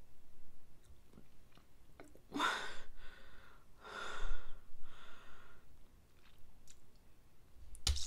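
A person breathes out hard through the open mouth twice, about a second and a half apart, each gust fading off, with small mouth clicks and smacks in between. They are reacting to a mouthful of Marmite, which she says burns.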